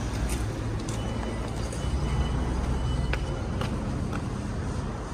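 Road traffic at a level crossing: car engines and tyres rumbling past as traffic moves off once the barriers have risen, with scattered light clicks. A faint high steady tone sounds from about a second in for about two seconds.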